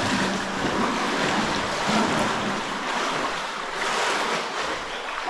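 Steady rushing of water in a cave stream, a loud, even hiss that swells and eases slightly.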